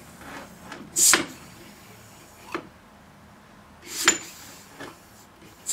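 Air hissing out of a small home-built steam engine cylinder in short puffs as the engine is turned over by hand, the piston compressing air under the cast-iron cylinder head: two sharp puffs about three seconds apart, with lighter knocks between. The puffs show the head is sealing well enough to build pressure.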